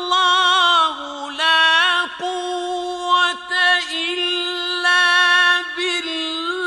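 Mujawwad-style Quran recitation: one male reciter draws out long melismatic notes with a quick vibrato, stepping between held pitches with a few short breaks.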